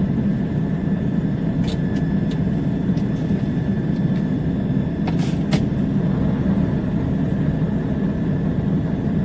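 Scania 144L truck's V8 diesel engine running steadily at low speed, heard from inside the cab, with a few short clicks around two and five seconds in.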